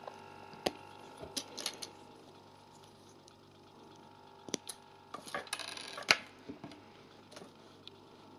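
Small plastic building-brick pieces clicking and rattling as toy wheels are pressed onto their axles: scattered sharp clicks with a denser run of clicks about five to six seconds in, over a faint steady hum.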